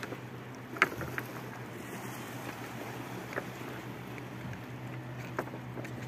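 Footsteps on a beach of rounded pebbles, with a few sharp clicks of stones knocking underfoot, the loudest about a second in, over a steady low hum.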